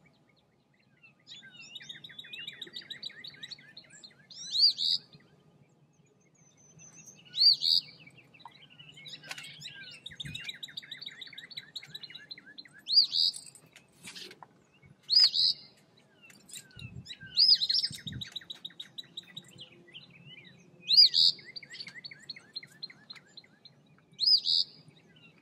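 Eastern phoebe singing, about seven short, loud, hooked phrases a few seconds apart, with long rapid trills filling the gaps between them.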